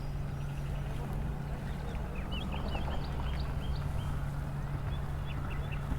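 Birds chirping, a run of short high calls starting about two seconds in, over a steady low hum.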